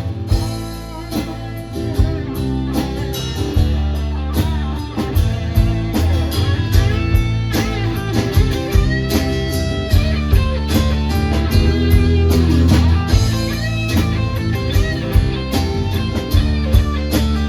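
Live blues-rock band playing an instrumental break with no singing: a lead electric guitar solo with bending notes over bass and steady drums.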